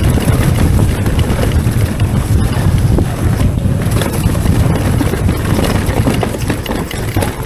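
Wind rushing over the camera microphone as a Transition Sentinel V3 mountain bike descends a dirt trail at speed off the brakes, with tyre noise and scattered small knocks from the bike over rough ground.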